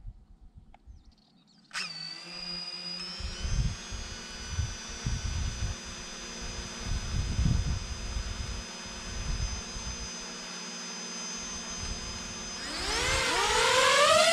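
DJI FPV quadcopter's electric motors starting abruptly about two seconds in with a steady whine of several tones, with irregular low rumbling underneath. Near the end the whine rises in pitch and grows louder as the motors spool up under throttle.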